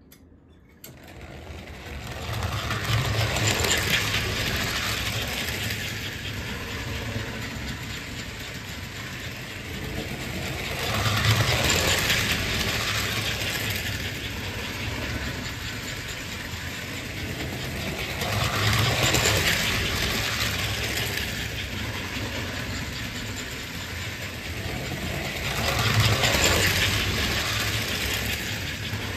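American Flyer S-gauge model train, a chromed diesel pulling passenger cars, running around its loop of track with a steady wheel clatter and motor hum. It swells louder four times, about every seven and a half seconds, each time it comes past the microphone.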